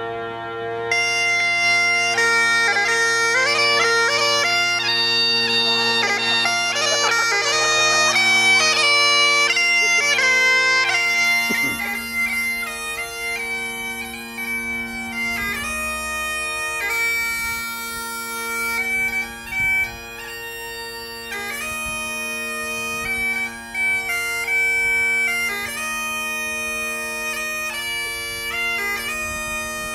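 Highland bagpipes playing a tune: the chanter melody comes in about a second in over the steady drones.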